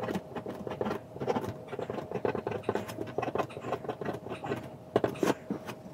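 Ballpoint pen writing on paper: quick, irregular scratches and taps as letters and numbers are stroked out, with a faint steady hum underneath.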